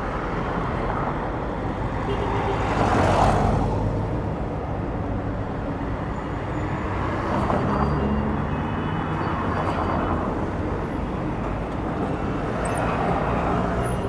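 City street traffic: a steady rush of tyres and engines as several vehicles pass one after another. The loudest passes close by about three seconds in.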